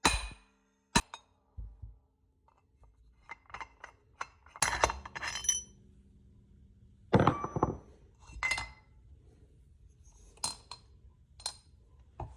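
Hammer striking metal on a UTV primary clutch to split its two halves: sharp, irregular metallic hits, some with a short ring, and metal parts clinking, the loudest hit about seven seconds in.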